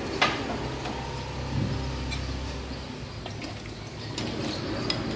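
Metal ladle clinking against a large aluminium soup pot and bowls as soto broth is ladled out: one sharp clink about a quarter second in, then a few lighter ones. A low rumble runs underneath for the first three seconds.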